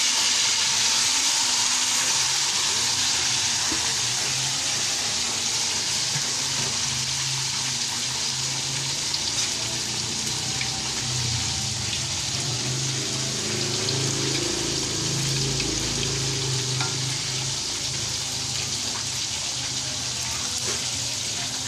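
Battered food deep-frying in a wok of hot oil: a steady dense sizzle that eases off slightly as it goes on, with a few small pops.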